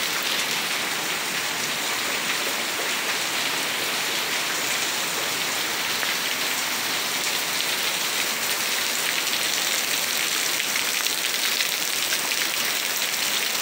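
Heavy thunderstorm rain falling steadily: a constant, even hiss of rain on surfaces.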